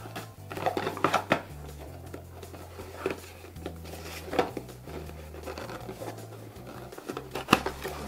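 A thin white cardboard box being pulled apart and opened by hand: scattered taps, scrapes and rustles of paperboard, the sharpest about a second in and near the end. Soft background music with a low bass line runs underneath.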